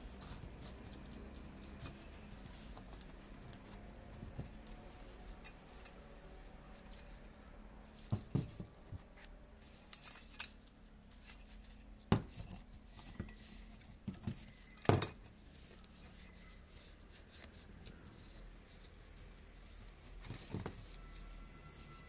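Rusty metal burner parts of a kerosene lamp being handled and pulled apart by hand: scattered clinks, taps and scrapes of metal on metal, with a few sharper knocks, the loudest about 12 and 15 seconds in.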